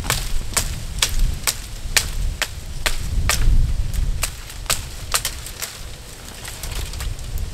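Wood fire crackling, with sharp irregular pops a few times a second over a low rumble.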